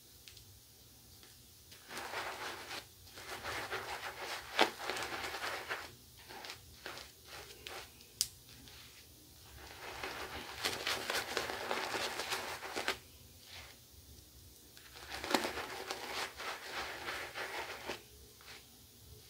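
Pearl Flexi adjustable double-edge safety razor, with a Gillette Winner Stainless blade on its fourth and final use, scraping through two days' stubble under lather. The strokes are short and crackly and come in three runs with pauses between them, plus a few sharp clicks.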